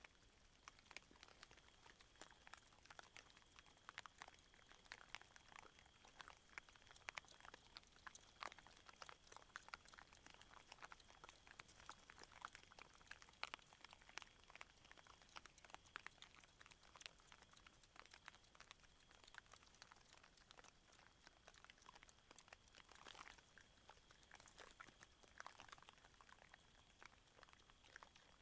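Faint, irregular crunching and clicking of wild boar chewing maize kernels at a feeder, over a thin steady high tone.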